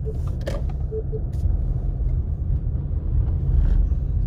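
Steady low rumble of a car's engine and tyres heard from inside the cabin as it drives slowly, with a few light clicks in the first second or so.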